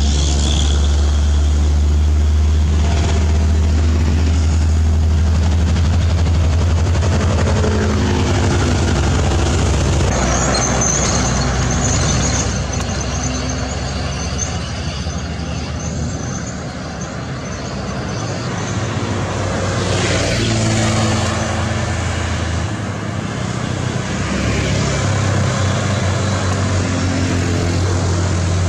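Diesel engines of heavily loaded trucks, among them a Mitsubishi Fuso, labouring uphill in low gear with a deep steady drone. The sound eases off in the middle and swells again about two-thirds of the way through as the next truck climbs closer.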